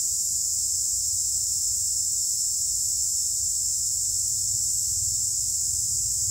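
Steady, high-pitched chorus of insects, unbroken throughout, with a low rumble underneath.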